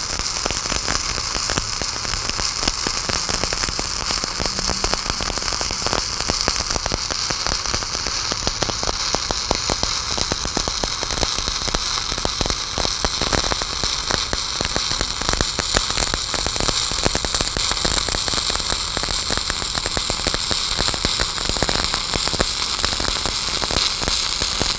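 Shielded metal arc (stick) welding with a 1/8-inch 7018 electrode at about 125 amps: the arc crackles steadily while the hot pass is laid over the 6010 root of a beveled plate joint.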